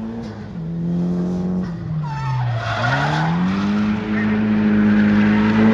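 Drift car's engine revving with its tyres squealing through a slide: the revs fall away to a low point about two and a half seconds in, then climb back and hold high while the tyre squeal grows louder.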